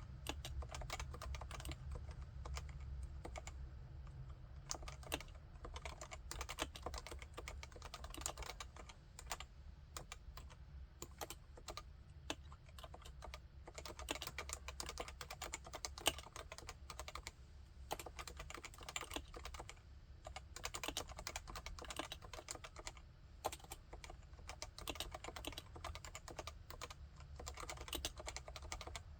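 Typing on a Realforce 87UW keyboard with Topre electrostatic capacitive switches: a steady run of quick, irregular keystrokes. The spacebar has a jingly rattle.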